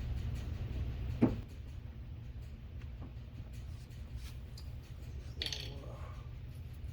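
Small clicks and knocks of car door parts and tools being handled, with one sharp click about a second in and a brief rustle near the end, over a low steady hum that drops away after the click.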